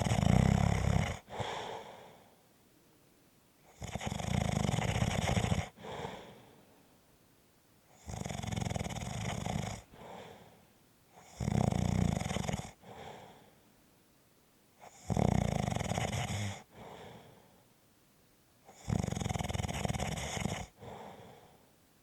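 Steady, rhythmic snoring: six snores, each a loud snore of about a second and a half followed by a shorter, softer breath, coming about every three and a half to four seconds.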